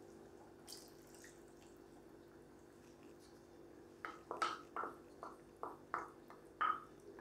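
Hot water poured from a bowl into a pan of beef curry, landing as a run of about eight short splashes and drips that start about four seconds in.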